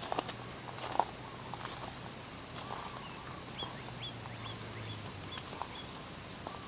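A bird calling: a row of short, high chirps, about six of them, around the middle. A faint low hum stops about five seconds in.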